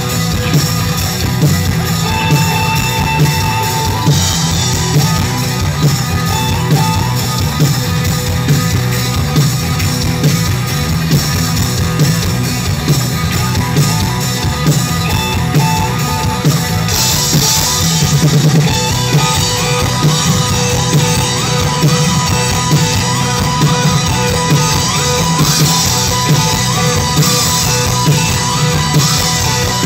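Live rock band playing loudly over a stage PA: a driving drum kit with electric guitars and bass.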